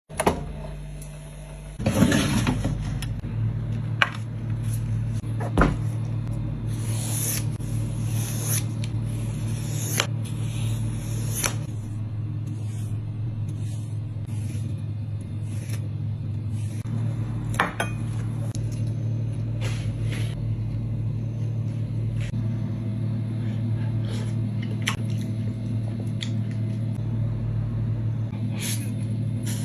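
Kitchen cooking sounds: a steady low hum with scattered clinks and knocks of utensils against pots and dishes, the loudest about two seconds in and again a few seconds later.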